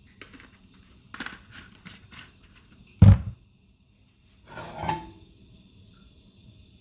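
Cookware being handled on a stove: several light clicks and taps, a single heavy knock about three seconds in as a pan is set down, and a short clatter near five seconds.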